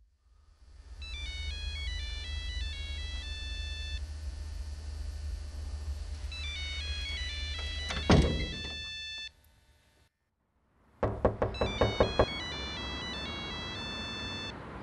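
Mobile phone ringtone, a melody of high beeping notes, playing over a low hum. About eight seconds in comes a heavy thud and the sound drops to near silence; then a quick run of about six thuds, and the ringtone melody starts again.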